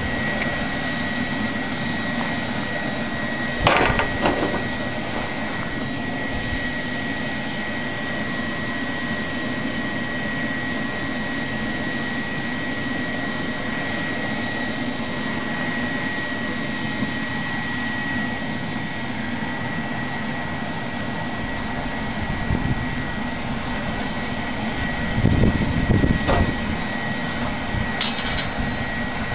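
Shop vacuum motor running steadily, with a constant high whine, used as the air blower for a charcoal foundry. A sharp knock comes about four seconds in, and a few low thumps come near the end.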